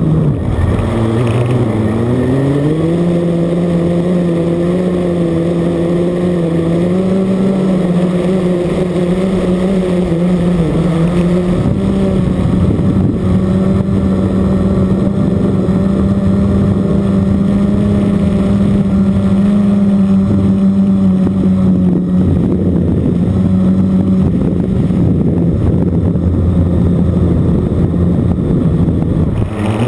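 Blade 350 QX quadcopter's brushless motors and propellers, heard from a camera mounted on the quad, running with a steady whine. The pitch dips near the start, climbs over the next couple of seconds, steps up again about twelve seconds in, and dips once more at the very end as the throttle changes.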